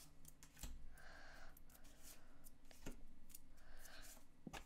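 Pokémon trading cards being slid one by one across each other in the hand: soft sliding swishes about a second in and again near the end, with faint light clicks of the card edges between them.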